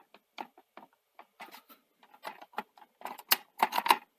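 Light plastic clicks and taps as a Perspex window is handled and pressed back into the clips of a video recorder's plastic front panel, with a quick run of louder clicks about three seconds in.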